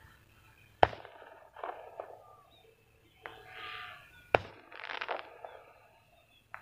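Two sharp cracks about three and a half seconds apart, with rustling after each.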